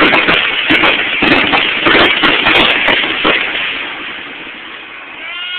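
Fireworks finale barrage: aerial shells bursting and crackling in rapid succession for about three seconds, then dying away.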